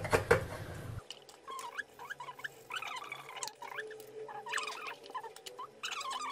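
Short high squeaks and chirps, repeated irregularly, mixed with light clicks and knocks as plastic spice jars, lids and a funnel are handled on a countertop.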